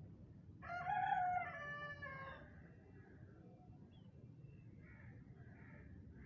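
A rooster crowing once, a single drawn-out call of under two seconds that falls slightly at the end, over a low steady background rumble.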